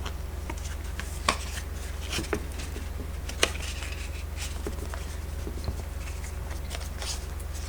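Tarot cards being handled on a table: scattered light taps and rustles, with two sharper clicks, one about a second in and one about three and a half seconds in, over a steady low hum.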